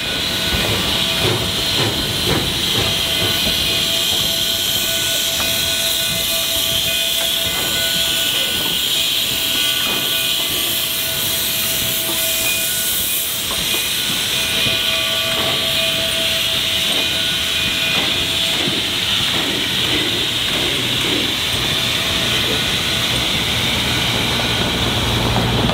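Narrow-gauge K-28 class 2-8-2 steam locomotive No. 473 hissing loudly and steadily as it moves along the track.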